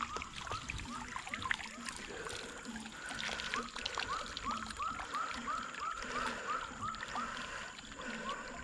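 Frogs calling at the pond edge, a steady run of short rising notes about three a second, with a fainter lower repeating note beneath. Water drips and trickles from the scoop net as it is lifted out of the pond.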